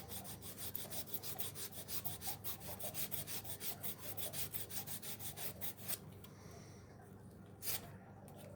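Sandpaper rubbed by hand over a wooden handle in fast back-and-forth strokes, taking off old lacquer and paint down to bare wood. The strokes stop about six seconds in, and one more comes near the end.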